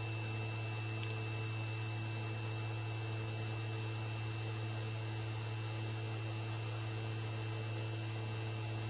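Steady low electrical hum with a faint high whine, from a CNC machine running a Mach3 job with its 110 VDC spindle switched on. The hum does not change.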